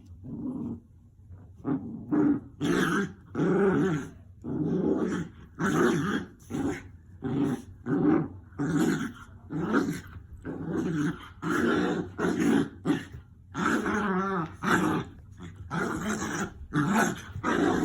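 Two dogs growling at each other in a quick run of short bursts as they tussle; from the sound alone it is unclear whether it is rough play or a real fight.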